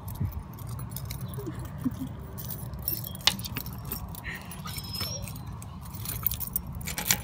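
A bunch of keys jangling, with scattered sharp metallic clicks, as a metal security storm door is unlocked and opened, over a low steady hum.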